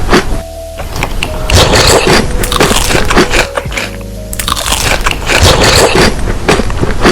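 Loud background music with a repeating pattern: hissy, crashing stretches alternating with steadier passages of held notes, about every two and a half seconds.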